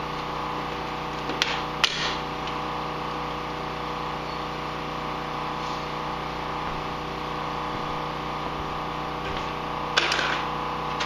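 A steady hum made up of several tones, with a few sharp clicks and knocks from parts being handled on a snowmobile: two close together about a second and a half in, and one more near the end.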